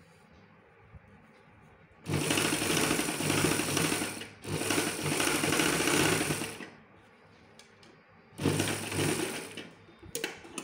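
Domestic sewing machine stitching in three runs: two runs of about two seconds each starting about two seconds in, with a brief pause between them, then a shorter run later on. A few light clicks come at the very end.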